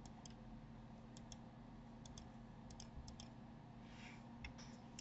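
Faint clicking of a computer mouse, short clicks coming every second or so, often in quick pairs, over a low steady hum.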